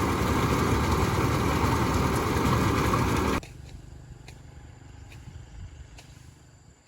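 A small engine-driven machine runs steadily and loudly, then cuts off abruptly about three and a half seconds in. After that only a faint low hum and a few light clicks remain.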